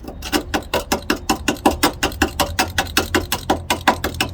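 Rapid, even mechanical clicking, about seven clicks a second, over a steady low hum, from a power tool running.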